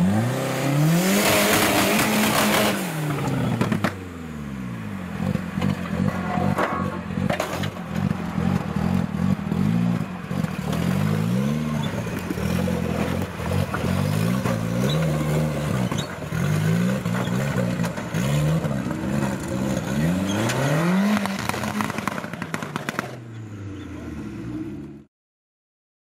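Off-road 4x4's engine revving up and dropping back again and again, about once every second or two, as it crawls over loose rocks, with clatter and scraping of tyres and rock. The sound cuts off suddenly near the end.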